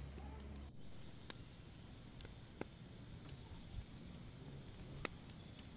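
Faint, scattered crackles and pops from wood embers burning under a sheet-metal camp stove.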